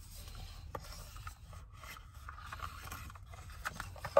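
Rummaging through a knitting bag: a steady rustling and scraping of fabric and the bag's contents, with a few small clicks and a sharp, louder click at the very end.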